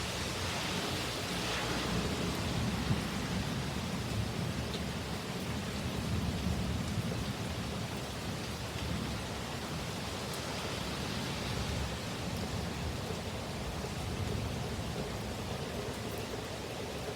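Heavy rain pouring steadily in a severe thunderstorm, with a low rumble that swells over the first few seconds and again near the middle.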